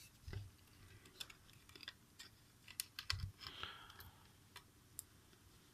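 Faint scattered clicks and taps of a smartphone and its small parts being handled and pressed together, with two soft thumps and a brief rustle.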